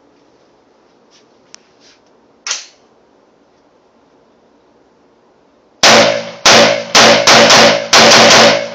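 Unsuppressed short-barrel AR-15 in .223 with an 11-inch barrel, fired in a quick string of loud shots starting about six seconds in. A few faint handling clicks come first.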